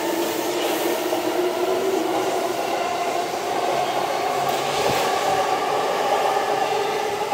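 Electric commuter train at a station, running with a steady hum of several held tones that drift slowly in pitch, over a noise of the train.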